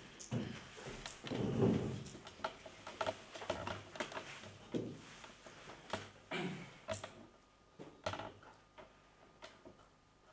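Irregular knocks, scuffs and creaks as a person moves about on a stage and sits down on a chair. They are busiest for the first seven seconds or so, then thin out to a few faint clicks.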